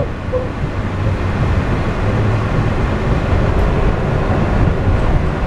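Walt Disney World monorail running, heard from inside the cabin as a steady rumble with a low hum, growing a little louder about two seconds in.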